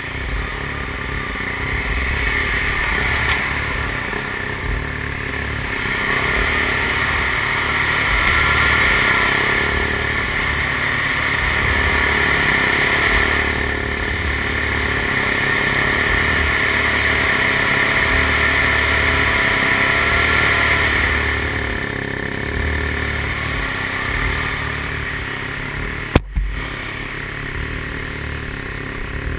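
A steady engine-like motor noise with a low rumble, swelling and easing every few seconds, and one sharp click near the end.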